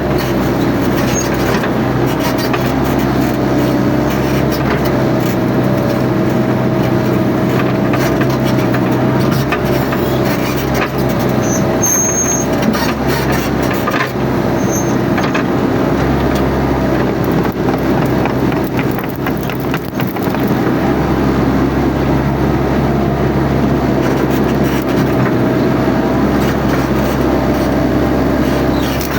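Mini excavator's engine running steadily under working load, with a wavering hydraulic whine on top and a few scattered cracks of brush being broken.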